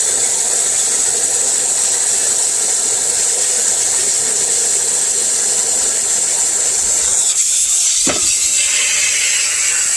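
Water hose jetting into water, a steady loud hiss with bubbling that makes a jet-like rocket sound. A brief knock about eight seconds in.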